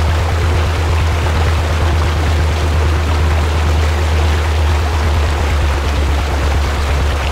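Rushing water of a rocky forest stream: a steady, even noise with a strong low rumble underneath.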